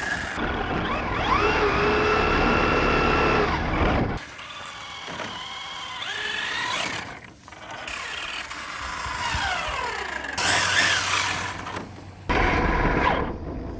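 Electric motor of a 1/10-scale Traxxas Ford Raptor RC truck whining up and down in pitch as the throttle is worked, with tyre and drivetrain noise, in several short cut-together runs.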